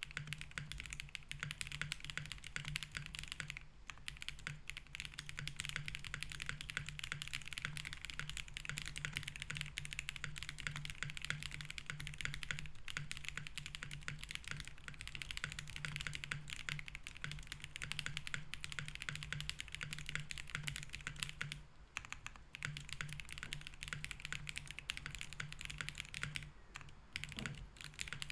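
Continuous fast typing on a Link65 mechanical keyboard with BSUN Roselle switches in an FR4 plate with case foam: a dense stream of key clacks, with short pauses about 4 seconds in, around 22 seconds and near the end. A faint steady low hum sits underneath.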